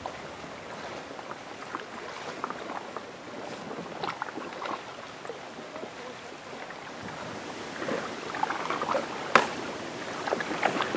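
Double-bladed kayak paddles dipping and splashing in slow river water, in scattered strokes over a steady wash of water and air. One louder knock or splash comes near the end.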